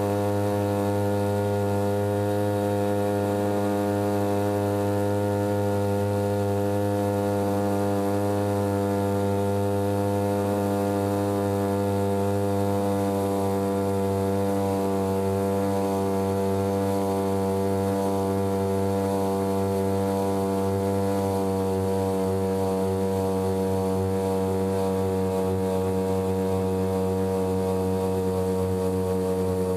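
Small 3 hp boat engine running steadily at cruising speed, one even engine note whose pitch sags slightly through the stretch as the boat slows a little.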